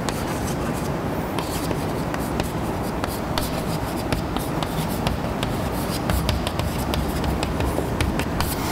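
Chalk writing on a blackboard: a quick, irregular run of taps and short scratches as letters and symbols are written, over a steady low room hum.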